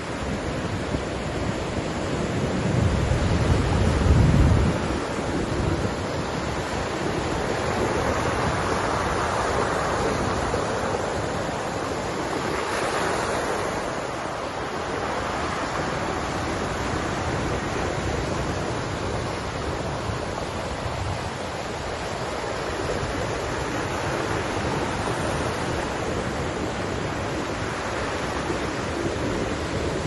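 Black Sea surf: small waves breaking and washing up the shore in a continuous rushing wash that swells and eases. Wind rumbles on the microphone, loudest about four seconds in.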